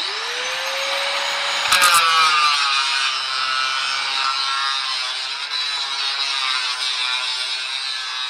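Angle grinder switched on, spinning up with a rising whine, then cutting through a galvanised steel strip with a steady loud grinding. It is loudest about two seconds in, as the disc bites into the metal.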